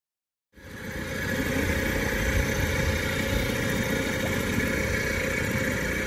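Small boat's outboard motor running steadily under way, with wind rumbling on the microphone. It cuts in abruptly about half a second in.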